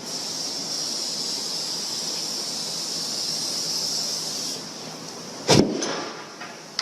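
A steady, high hiss for about four and a half seconds, then one sharp bang about five and a half seconds in.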